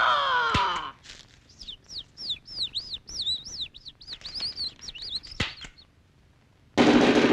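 Cartoon bird sound effects: a squawk that falls in pitch, then a quick run of high whistled chirps, each sliding up and down. Near the end a drum roll and music break in suddenly.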